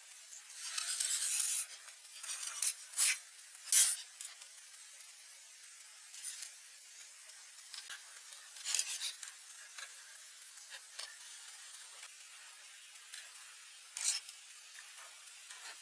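Intermittent scraping or rubbing strokes, with a long stroke about a second in, several short sharp ones soon after, and a few scattered ones later.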